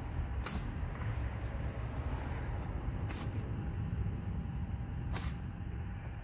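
Razor blade scraping old decal off a vehicle's fender in three short strokes, over a steady low background rumble.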